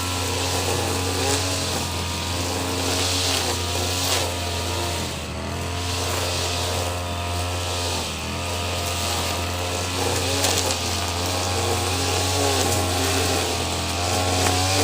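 Petrol brush cutter running at high revs while cutting grass, its engine note dipping and picking up again every second or two as the line bites into the grass.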